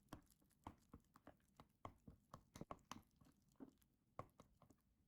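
Thick spiced flour batter being stirred in a bowl: faint, irregular soft squelches and clicks, about three to four a second.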